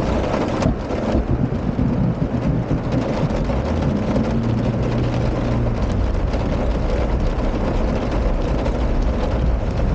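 Car driving through a flooded stream in heavy rain: engine running under a steady rush of water and rain noise.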